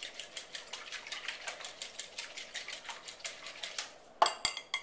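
Wire whisk beating egg and milk in a glass mixing bowl: a fast, even clicking of the wires against the glass, about eight strokes a second, then two louder clinks a little past four seconds.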